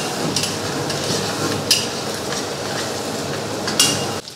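Mutton pieces frying in hot oil in a karahi, a steady sizzle, with a metal ladle scraping and knocking against the pan three times as it stirs. The water has cooked off, so the meat is frying in oil alone. The sizzle drops suddenly near the end.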